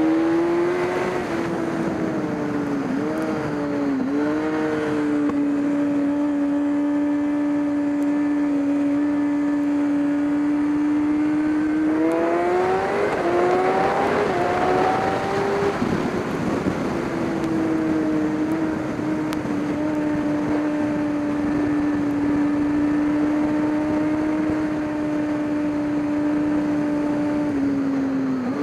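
Racing car engine running at steady revs for long stretches. The pitch dips briefly a few seconds in, climbs in two quick rises around the middle, then settles again and drops near the end.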